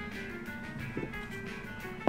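Soft instrumental music with sustained, held tones, and a faint soft knock about halfway through.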